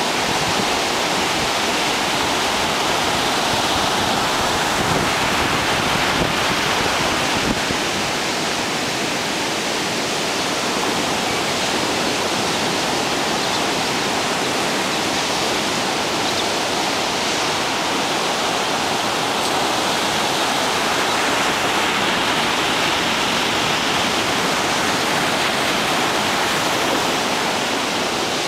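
Heavy Atlantic surf breaking along the beach and around a rock jetty: a loud, steady wash of noise that swells and eases slightly, with no single crashes standing out. The surf is running higher than normal with swell from a tropical storm.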